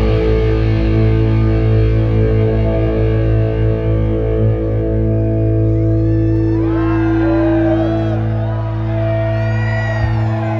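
A rock band's distorted electric guitars and bass hold a final chord that rings out as a steady drone. From about halfway through, wavering high squeals rise and fall over it.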